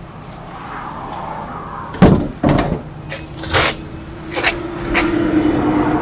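RV exterior storage compartment doors and their latches being shut and opened: a series of knocks and clacks, the loudest a slam about two seconds in, with four more over the next three seconds. A steady hum builds in the second half.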